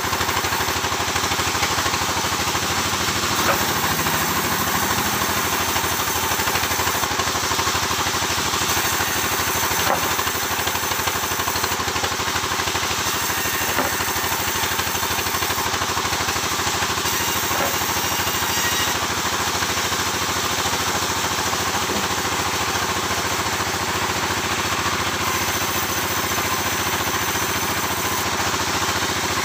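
Sawmill's engine running steadily, with a few faint clicks.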